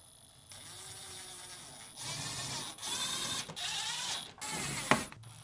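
Screws being driven into a refrigerator's back cover with a nut driver: a whirring, ratcheting mechanical sound in several short runs, with a sharp click near the end.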